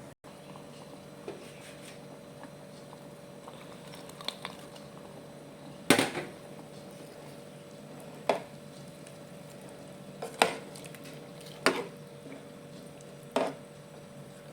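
A cooking utensil knocking against a metal pan five times at uneven intervals, each strike ringing briefly, over a steady low hum.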